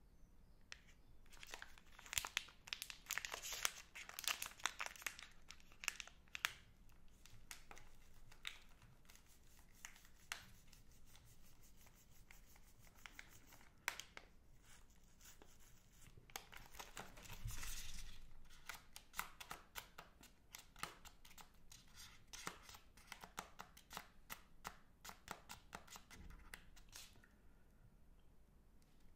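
Plastic wrappers of two Magnum Double Chocolate bars crinkling as fingers squeeze and rub them, a dense fine crackle in two long bursts with sparser crackling between.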